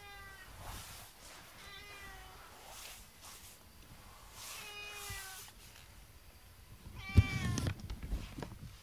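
Domestic cat meowing four times, about two seconds apart, each call falling in pitch. The last call, about seven seconds in, is the loudest, and a knock sounds with it.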